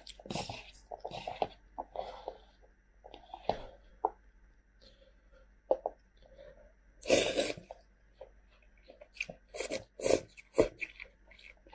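A person slurping and chewing spicy instant cup noodles, with chopsticks knocking and scraping in the paper cup. The loudest, a long slurp, comes about seven seconds in, and a run of short sharp clicks follows near the end.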